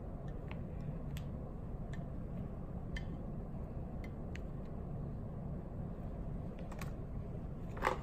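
Faint scattered clicks and taps of a paintbrush and paint palette being handled, with a louder click near the end, over a steady low room hum.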